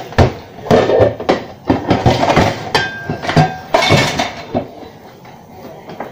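Dishes clattering and clinking as bowls and plates are washed by hand in a stainless steel sink: a rapid run of knocks, one bowl ringing briefly in the middle, dying down after about four and a half seconds.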